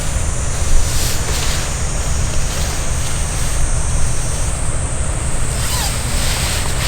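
Sea waves washing ashore, with wind buffeting the microphone in a steady deep rumble.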